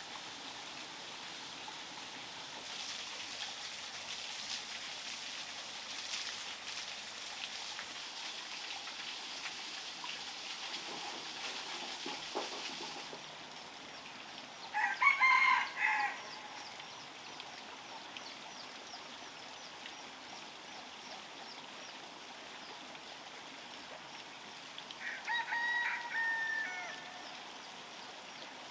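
A rooster crows twice: a loud crow about halfway through and another near the end. Before that, in the first part, there is a steady hiss with crackles from a green bamboo tube cooking in glowing embers.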